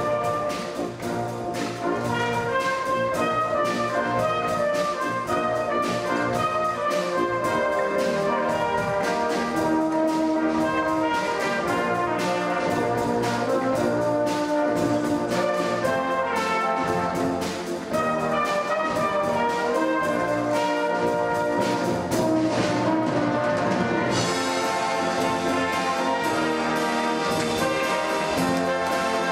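Orchestral music with brass and a steady beat, getting brighter about five seconds before the end.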